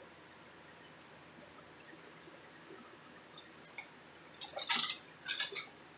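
Peel-and-stick vinyl floor tiles being handled and laid: a few short rustling, scraping sounds from about three and a half to five and a half seconds in, over the steady hiss of a running fan.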